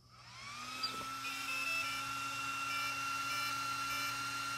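Axial SCX6 RC truck's electronics switching on: a whine rises in pitch over about the first second and settles into a steady tone. Faint short beeps come and go over it.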